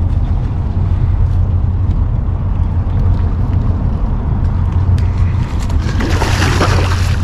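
A hooked salmon thrashing and splashing at the water's surface beside a landing net, a brief burst of splashing about six seconds in, over a steady low rumble.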